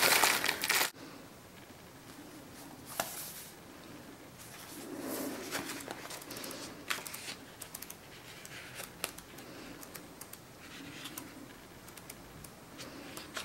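Crinkly foil bag rustling as loose tea is handled, loud for about the first second and then cut off. Then quiet paper handling: a small booklet's pages flipped, with soft rustles and light clicks.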